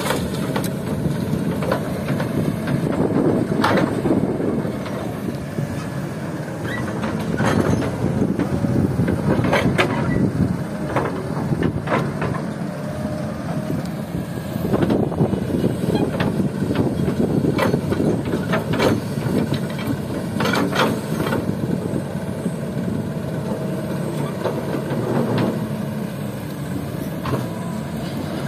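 Kobelco SK200 excavator's diesel engine working, swelling and easing with the hydraulic load as the bucket digs and swings. Scattered knocks and rattles of sand and gravel against the steel bucket and dump-truck bed.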